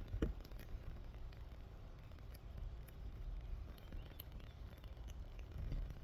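Faint handling noise: small scattered clicks and light taps as a SIM ejector tool is worked free from a phone's packaging, over a low rumble.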